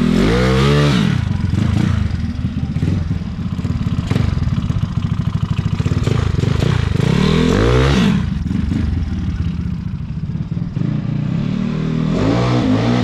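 Yamaha Fino scooter's tuned single-cylinder engine, fitted with a 59 mm big-bore piston, revving hard three times: near the start, around eight seconds in and near the end. Each rev rises and falls in pitch, with a rough pulsing run at lower revs between them.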